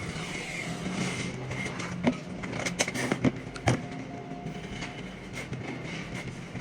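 A machine runs steadily with a hum, and a cluster of sharp knocks and clicks comes about two to four seconds in.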